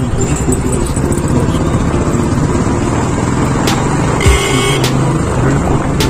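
Motorcycle riding on a road in traffic: steady engine and road rumble, with a short horn beep just after four seconds in.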